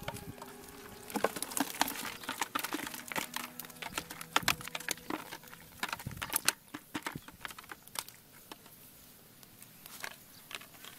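Rapid, irregular clicking and knocking as a woven bamboo fish trap is shaken and tapped against a plastic bucket and live fish drop and flap inside. The rattling is thickest over the first several seconds, then thins to scattered knocks.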